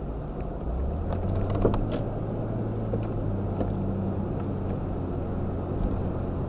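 Car driving in traffic, heard from inside the cabin: a steady low engine hum with road noise and a few faint clicks.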